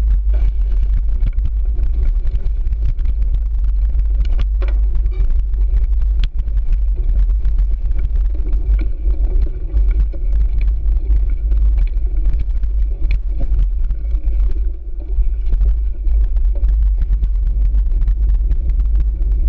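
Cyclocross bike riding a dirt trail, heard from a handlebar-mounted action camera: a loud, constant low rumble of wind and tyre noise on the microphone, with the bike rattling and a few sharp knocks.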